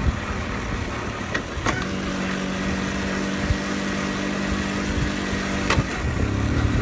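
Honda Super Cub 50's small single-cylinder four-stroke engine running at steady revs on a downhill stretch, under low wind rumble on the rider's microphone. A click about two seconds in starts a steady engine hum. Another click near six seconds cuts the hum, and the rumble returns.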